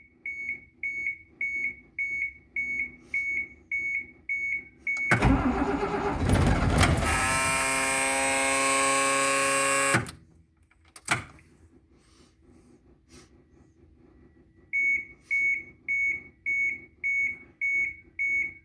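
A dashboard warning buzzer beeping in a steady repeat, then about five seconds of the 1996 Blue Bird bus's diesel engine cranking on the starter, its whine rising in pitch and holding before it stops abruptly; the engine turns over but does not fire. A single click follows and the buzzer beeping starts again near the end.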